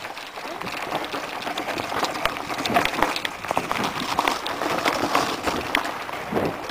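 Mountain bike rattling down a rocky dirt trail: a dense, irregular clatter of short clicks and knocks as the tyres roll over loose stones and the bike jolts.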